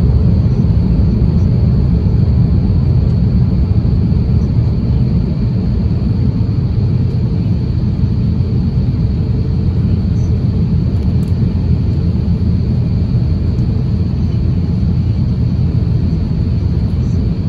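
Steady low rumble of airflow and engines heard inside the cabin of an Airbus A350-1000 airliner in flight on descent, with a faint steady high whine above it.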